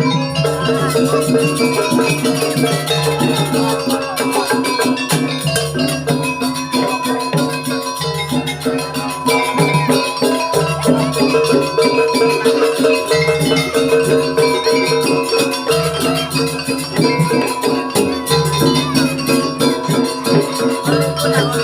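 Jaranan campursari music: gamelan-style pitched percussion repeating steady ringing notes over a dense, fast rattling beat.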